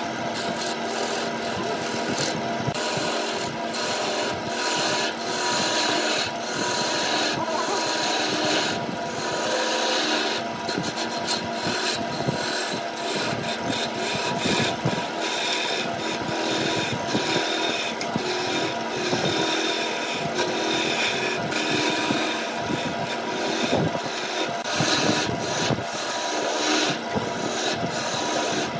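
Turning tool cutting into pale wood spinning on a wood lathe: a continuous rough scraping as shavings peel off, uneven from moment to moment. Underneath it runs the running lathe's steady whine.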